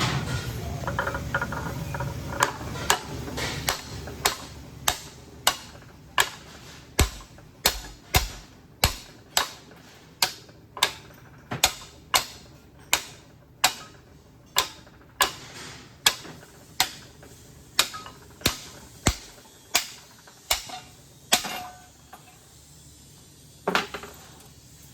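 Steel mallet striking metal again and again, about two sharp blows a second for roughly twenty seconds, then stopping. The blows hammer a part out of a hydroseeder's gear pump during disassembly.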